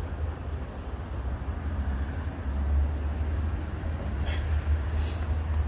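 Steady low outdoor rumble, with a few faint scrapes near the end from hands packing groundbait into a fishing feeder.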